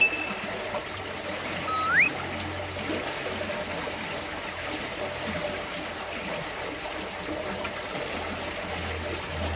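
Water trickling steadily, like a small stream or channel. It opens with a short ringing tone, and a single rising whistled call, like a bird's, comes about two seconds in.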